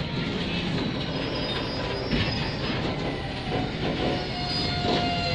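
Covered bogie freight wagons rolling past on the track, their steel wheels rumbling over the rail with a thin, steady squeal. A single knock comes about two seconds in.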